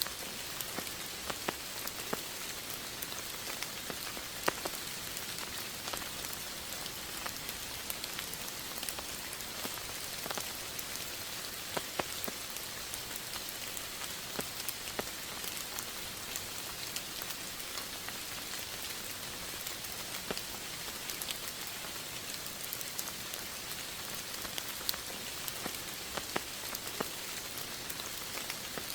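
Steady rain falling, an even hiss with individual drops ticking sharply here and there throughout.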